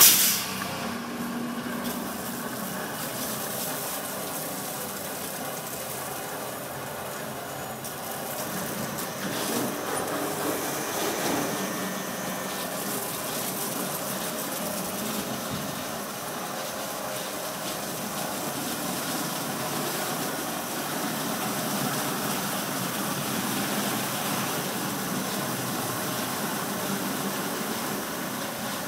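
Ceccato Ginga WD rollover car wash at work: its rotating brushes and drive motors give a steady mechanical hum mixed with a broad hiss of water spray. A brief loud burst comes right at the start.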